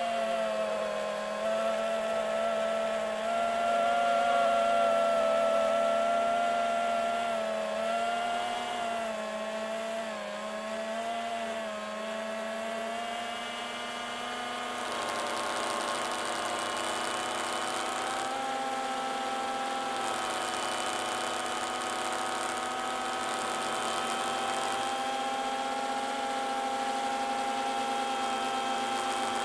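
FPV quadcopter's brushless motors and propellers whining steadily as heard from the onboard camera, several tones stacked together that waver in pitch through the first half and then hold steadier, with a hiss added from about halfway.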